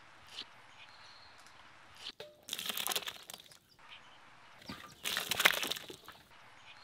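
Two rough scraping, rustling bursts, each about a second long, about two and a half and five seconds in: hands and a utensil working at a plastic bucket and a cloth-covered basin. A faint bird chirp early on.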